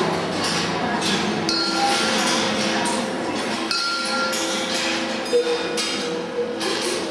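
Kinetic ball machine running: balls rolling and clinking along its wire tracks and switches, with scattered short knocks and several ringing tones that hang on for a second or more.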